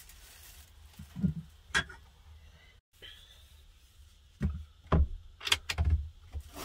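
Kitchen clatter of cookware being handled: pan lids and pots lifted and set down on a small stovetop, a few scattered knocks and clinks, busier in the second half.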